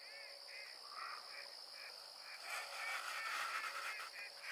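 Waterfowl on a marsh calling: many short squawking calls, few at first and then overlapping and busier after about two and a half seconds. Under them runs a steady high trill of crickets.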